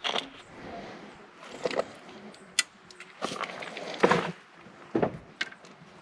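A series of irregular knocks, clicks and short rustling clatters, the loudest a thump about four seconds in.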